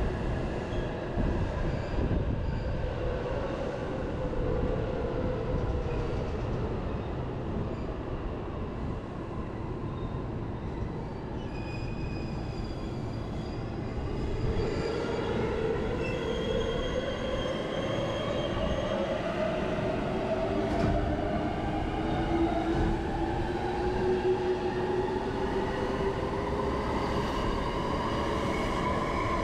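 Electric commuter train running on rails, its motor whine falling in pitch as it slows to a near stop over the first half. Then a rising motor whine as a train on the neighbouring track speeds up and passes close by near the end.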